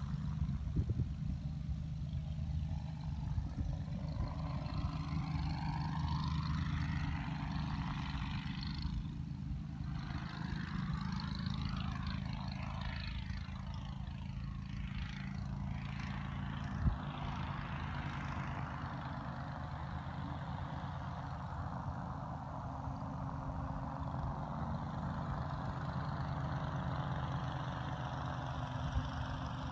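Powered parachute's engine and propeller droning steadily in flight, the pitch holding level. Through the first half a sweeping, phasing hiss rides above the drone as the craft moves across the sky.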